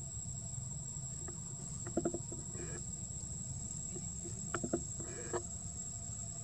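Insects buzzing in one steady high tone under a low rumble. A few short pitched calls come about two seconds in and again twice near the end.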